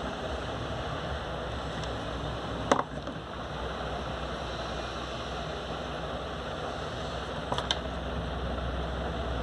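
Steady background hiss, with one sharp click about three seconds in and a couple of lighter clicks near the end.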